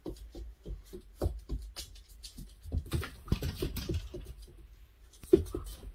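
A Labrador puppy's paws and claws pattering and scrabbling on a hard floor as she spins after her tail, in quick irregular taps. A single louder, sharper sound stands out near the end.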